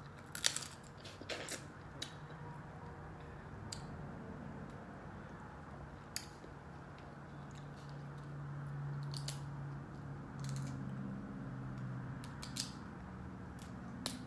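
Close-up mouth sounds of eating seafood boil: chewing and wet smacks, with sharp clicks from fingers peeling shell, clustered in the first couple of seconds and then scattered. A low hum rises in the middle.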